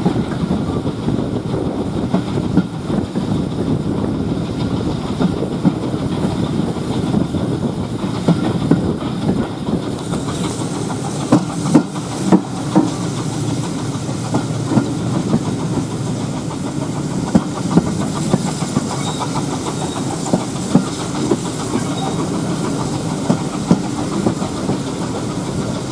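Steam-hauled passenger train behind a 0-6-0 saddle tank locomotive, heard from an open carriage window: a steady rumble of wheels on the rails. From about ten seconds in, a hiss of steam joins it, along with repeated sharp clicks.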